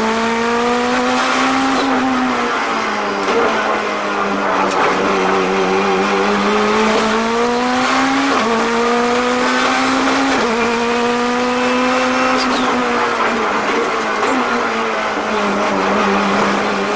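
Turbocharged Honda K22 engine of a Honda NSX race car heard from inside the cockpit, at full throttle on track. Its pitch climbs and then drops at each gear change, twice in quick succession near the middle, before it eases off toward the end.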